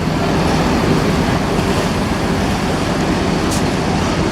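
Steady rumble of a bus engine with an even rushing noise over it, like wind or road noise, unchanging throughout.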